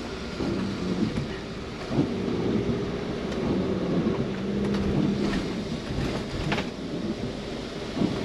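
Cab interior of a Fiat Ducato-chassis motorhome moving slowly in the rain: the diesel engine runs with a steady low drone under rain and wet-road noise, with the windscreen wipers sweeping and a few short knocks.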